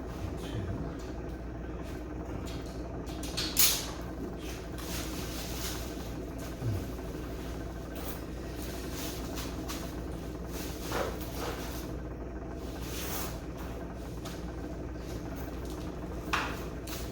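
Occasional knocks and clunks from hands working on a generator frame, most likely the metal shipping brace being taken off. There are four separate knocks, the loudest a few seconds in, over a steady low hum.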